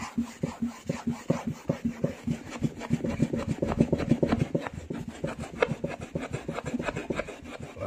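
An alcohol-soaked cloth rubbed hard back and forth over a white chair seat to scrub off stains, in quick repeated strokes that get faster and louder midway.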